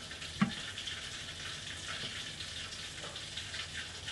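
Water at a rolling boil in a steamer pot, a steady bubbling hiss, with a sharp knock about half a second in as the glass lid is lifted off.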